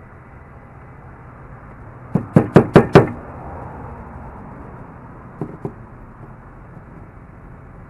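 Five quick, sharp knocks on a pine board in about a second, each a little louder than the one before, then two faint clicks a couple of seconds later.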